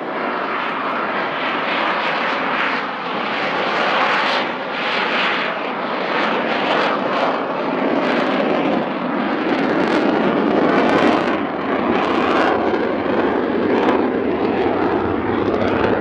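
Saab JAS 39 Gripen C's single afterburning turbofan (a Volvo RM12) making a continuous jet roar with irregular crackling as the fighter makes a slow low pass and then flies away.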